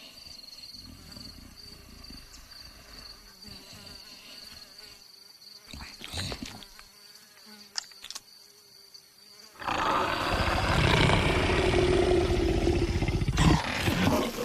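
A faint steady high whine with a few short clicks, then, about two-thirds of the way through, a much louder rough animal vocalisation that runs on to the end.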